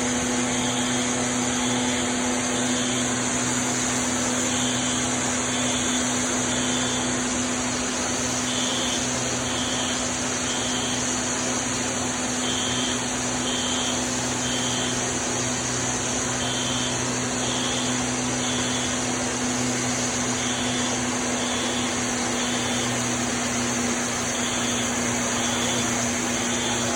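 A fire alarm is sounding the temporal-three evacuation signal: three short high beeps about a second apart, then a pause, repeating every four seconds. Underneath is the steady rushing noise and hum of high-expansion foam generators discharging.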